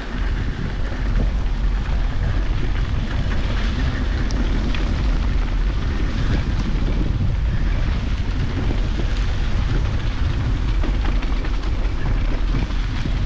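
Wind buffeting the microphone of a handlebar-mounted GoPro Hero 8 as a mountain bike rolls down a trail, a steady heavy rumble with rain and hail pattering and scattered ticks from the bike.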